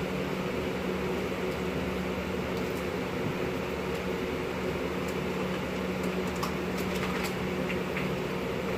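Electric box fan running with a steady whir and a low hum. A few faint clicks about two-thirds of the way through.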